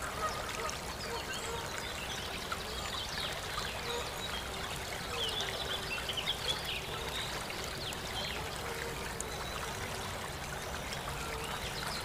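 Waterside ambience: many small birds chirping in quick short notes over a steady hiss of running water.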